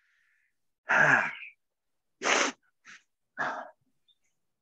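A person breathing out hard three times, about a second apart. The first is the longest, with a low falling groan in it. The other two are short and sharp.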